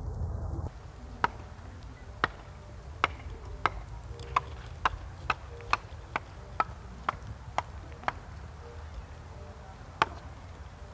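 A series of sharp knocks, each with a short ringing ping, coming unevenly and quickening to about two a second, then stopping, with one more knock near the end.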